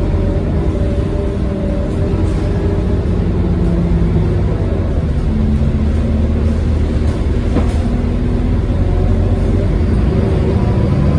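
Scania K230UB city bus under way, heard from inside the cabin: a steady low engine drone with a loud whine from its ZF automatic gearbox, the whine shifting in pitch a few times as the bus pulls away.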